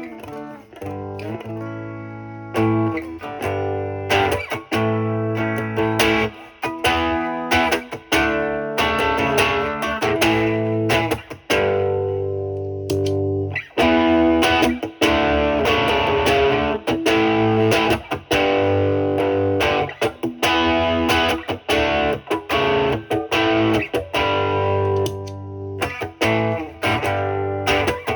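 Stratocaster electric guitar through a Marshall Valvestate amp's overdriven drive channel, playing notes and chords. About halfway through, an MXR Duke of Tone overdrive pedal is switched on in OD mode and the tone turns brighter and more driven.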